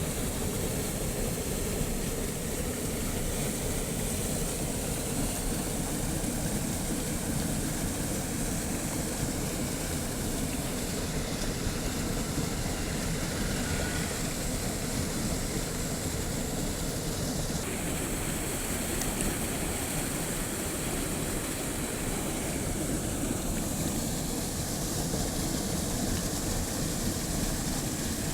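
Flowing water rushing steadily, an unbroken noise with no separate splashes, its tone shifting abruptly a couple of times partway through.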